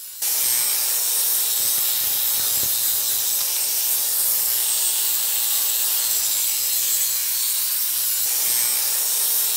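Black+Decker 4½-inch angle grinder with a flap disc grinding peeling paint off a concrete step's edge: a steady, even hiss of abrasive on concrete over the motor's hum. It comes in abruptly right at the start.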